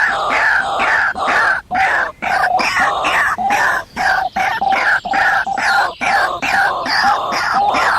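A bird calling over and over in short calls, a few each second, each dropping in pitch.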